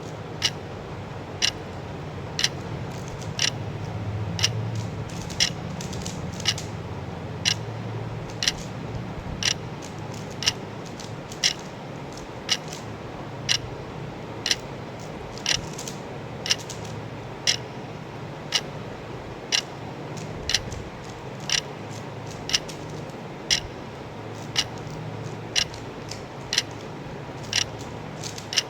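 Clock or timer ticking steadily, one sharp tick each second, over a low background hum: a countdown tick during a timed challenge.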